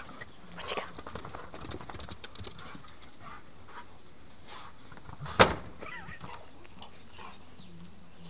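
A black-and-tan puppy scrambling around on grass and dirt: a quick run of rustles and small clicks in the first couple of seconds, then one short, loud sound a little over five seconds in.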